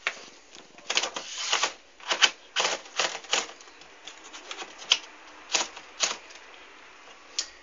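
Corona Zephyr portable typewriter mechanism clacking: about a dozen irregular sharp strikes, bunched in the first three and a half seconds, then a few spaced-out clicks.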